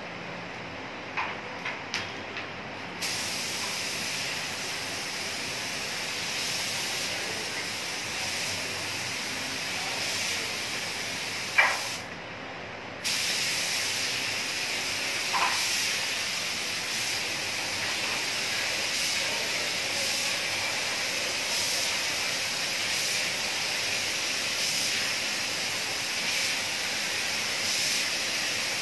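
Compressed-air paint spray gun hissing as it sprays. It starts about three seconds in after a few light clicks, cuts off briefly near the middle just after a sharp click, then starts again and runs on steadily.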